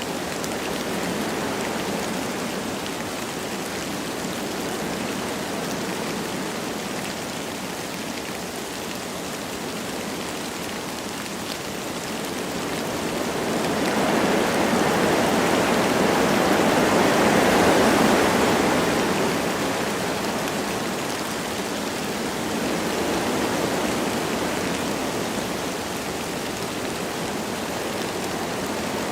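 Wind blowing through forest trees with light rain pattering, a steady rushing noise that swells louder in a gust about halfway through, then eases back.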